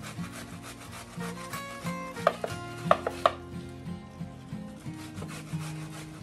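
Watermelon flesh being grated on a metal box grater, with repeated wet rasping strokes and a few sharper clicks of the grater.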